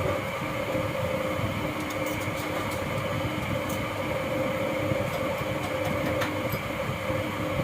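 A workshop machine running steadily, a constant hum over a low rumble.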